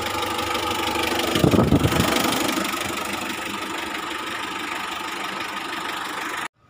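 Mitsubishi L300 van's engine idling steadily, with a brief louder rumble about one and a half seconds in. The sound cuts off abruptly near the end.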